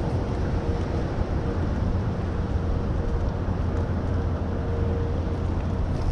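Steady low rumble of boat motors on the water, with a faint steady whine above it.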